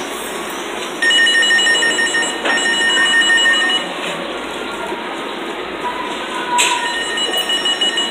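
A high, steady electronic alarm tone with a fast pulsing edge sounds for about three seconds, stops, and starts again near the end, over constant store background noise.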